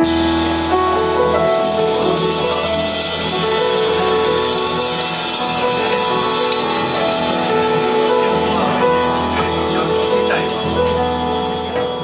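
Live jazz piano trio playing: acoustic grand piano, upright double bass and drum kit with a steady cymbal wash under the piano's held notes.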